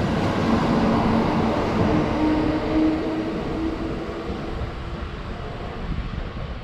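Kintetsu 30000 series Vista EX limited express passing through the station, its wheels on the rails making a rumble that fades as the last car draws away, with a low steady hum about two to three seconds in.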